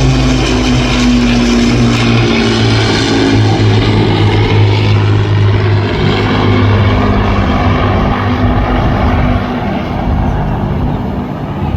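Lancaster bomber, Hurricane and Spitfire flying in formation, their V12 piston aero engines and propellers making a loud, steady drone that eases slightly near the end.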